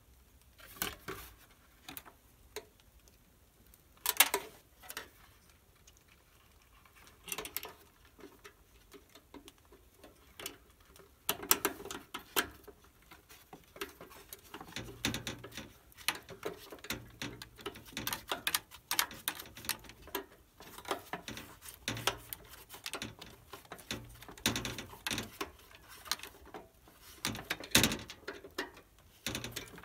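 Irregular clicks, taps and light metallic rattles of hand tools and metal parts as an RV furnace's blower motor assembly is fitted back into its compartment and fastened. A few scattered sharp clicks at first, then busier clicking and knocking from about a third of the way in.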